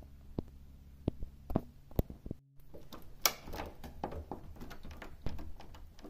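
Push-button combination lock on a door being worked: a few separate sharp clicks in the first two seconds, then a denser run of clicks and rattling from about three seconds in.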